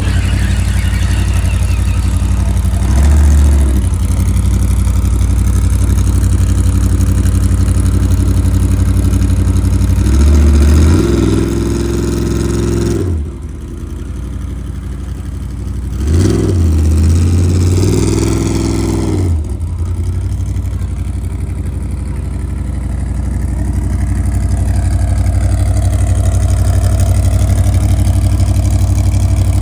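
Off-road race vehicle's engine idling with a low, steady note, revved three times, each rev rising and falling in pitch: a short one a few seconds in, then two longer ones in the middle.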